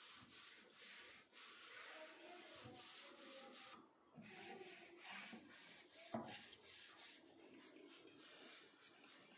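Faint, irregular rubbing or scrubbing sounds, with a single sharp knock about six seconds in.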